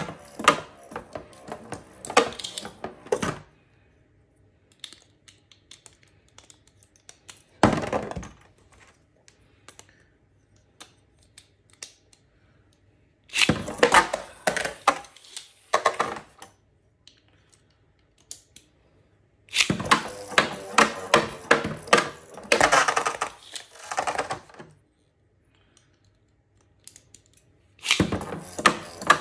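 Spinning Beyblade tops clattering around a plastic Beyblade stadium, rattling and knocking against each other and the stadium walls. They come in several bursts of rapid clicks lasting a few seconds each, with quiet gaps between.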